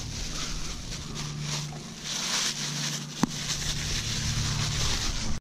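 A boat motor runs steadily with a low hum, and there is one sharp click about three seconds in.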